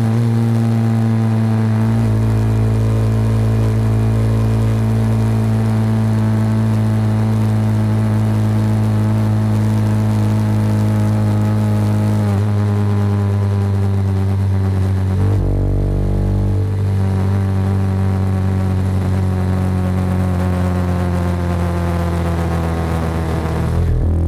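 Honda CB190R's single-cylinder engine running at a steady road speed. Its note holds even for long stretches and shifts pitch a few times, around the middle.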